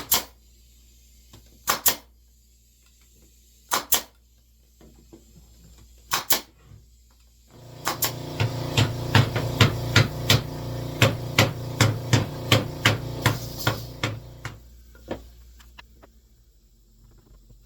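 Sharp strikes of tool work on wood: a few single knocks a couple of seconds apart. About seven seconds in, a steady machine hum starts, with quick regular strikes over it at about two a second, and it dies away near the end.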